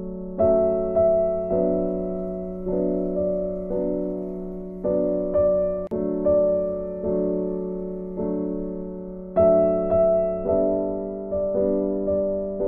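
Background piano music: soft notes struck one after another, each left to fade, over a held low note.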